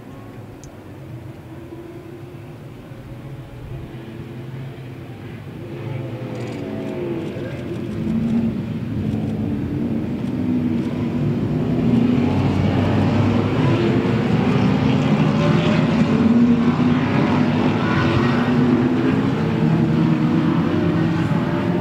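A pack of racing muscle cars approaching and passing in a close bunch, many engines running at once. The combined engine noise grows steadily louder, with engine notes rising and falling as the cars rev through the corner, and is loudest over the second half.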